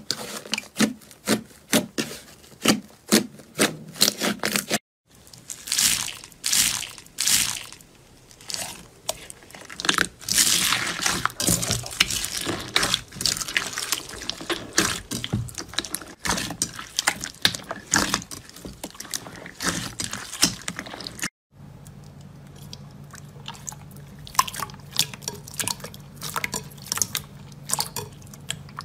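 Hands kneading and squeezing slime: quick runs of sticky clicks, pops and wet squelches. The texture changes twice where one slime clip cuts to the next, the last stretch wetter and softer.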